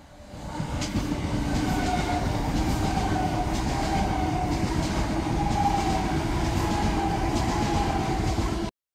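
Thameslink Class 387 electric multiple unit running through the station at speed: a loud steady rush of wheels on rail with a faint whine and repeated clicks. It swells in within the first half second and cuts off suddenly near the end.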